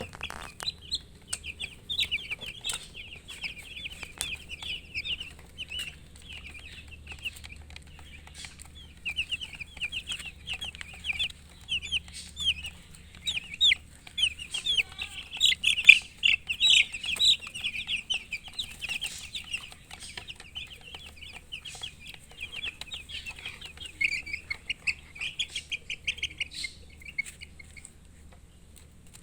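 A group of baby chicks peeping continuously, many short high-pitched chirps overlapping, thinning out near the end.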